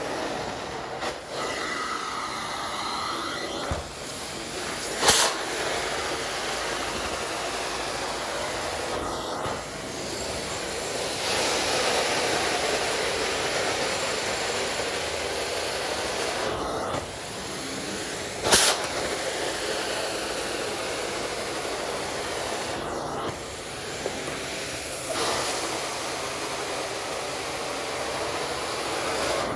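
Carpet-cleaning extraction wand running over a synthetic rug: a steady rushing hiss of suction and spray that dips briefly every few seconds between strokes. A sharp click comes twice, about five seconds and about eighteen seconds in.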